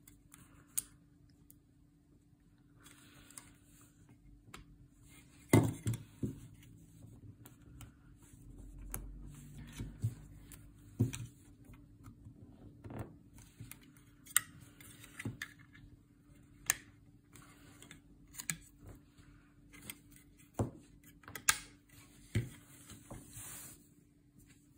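Plastic parts of a snap-together Airbus A320neo model airplane being handled and pressed together: scattered clicks and knocks, the loudest about five and a half seconds in.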